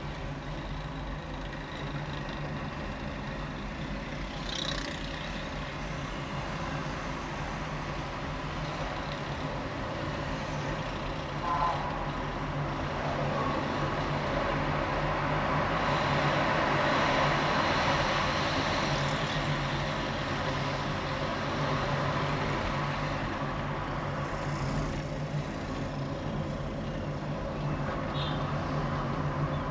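City street traffic heard from a moving vehicle: a steady low engine hum under the noise of passing cars and motorcycles, growing louder about halfway through. A few short higher-pitched sounds stand out now and then.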